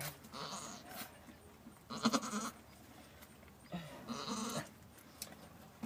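Goat bleating three times in short calls, the middle one the loudest.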